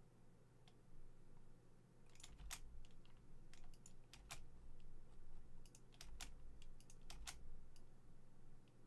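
Faint, irregular clicks and taps of a computer keyboard and mouse in use, starting about two seconds in, over a low steady hum.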